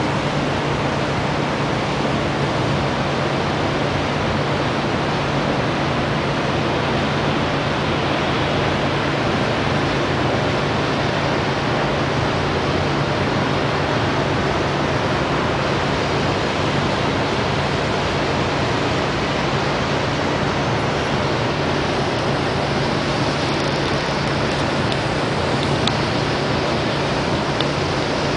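Steady city din heard from high above downtown: an unbroken wash of distant traffic noise with a constant low hum underneath.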